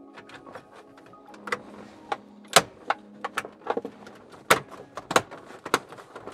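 Plastic radio trim bezel on a GM dash being pressed into place by hand, its clips snapping in as a string of sharp clicks and snaps. The loudest comes about two and a half seconds in, and several more follow between four and a half and six seconds.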